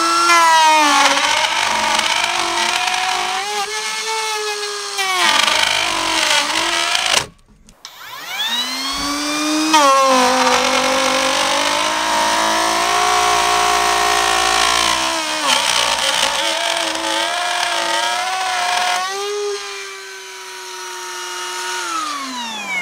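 Einhell TP-RO 18 Li BL cordless brushless router running at speed setting 6 with a 16 mm carbide bit, cutting grooves into oak. Its high whine rises as it spins up, then sags and wavers in pitch as the bit is pushed into the wood. The sound breaks off abruptly about seven seconds in, spins up again a second later, and winds down near the end.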